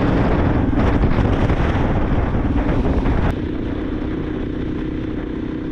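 KTM 500 EXC-F dual-sport motorcycle riding, its engine mixed with heavy wind noise on the microphone. A little over three seconds in, the sound drops suddenly to a quieter, steadier engine hum.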